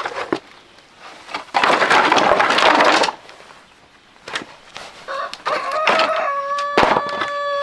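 A rooster crowing, one long drawn-out crow that starts about five seconds in and holds its pitch, dropping a step partway through. Earlier, about a second and a half in, there is a loud rushing noise lasting about a second and a half.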